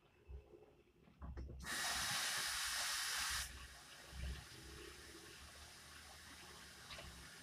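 Hot vegetable oil sizzling in a frying pan as a floured pork chop goes in: a loud burst of sizzling lasting about two seconds that drops off sharply, then a quieter steady sizzle. A few soft knocks come just before.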